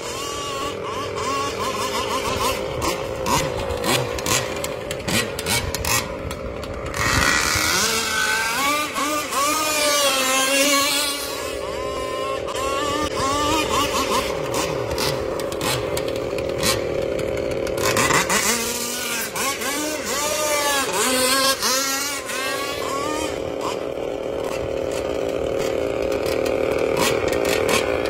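40cc two-stroke engine of a radio-controlled speedboat running at high revs, its pitch rising and falling as the boat speeds and turns. Twice it gets louder with a rush of hiss and a sweeping pitch as the boat passes close, and it grows louder again near the end.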